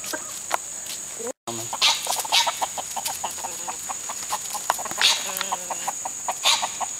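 A flock of backyard hens clucking in many short, repeated calls, with a few louder calls among them, over a steady high-pitched drone of insects. The sound cuts out for a moment about a second and a half in.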